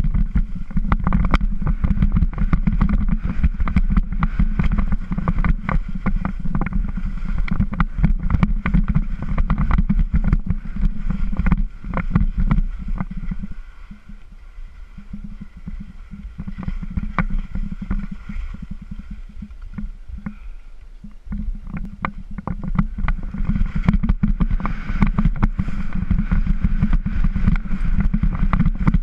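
Skis scraping and chattering over hard, tracked-up snow, with many sharp clicks from the edges, under a heavy low rumble of wind on the camera's microphone. The sound drops noticeably for several seconds in the middle, then comes back as loud as before.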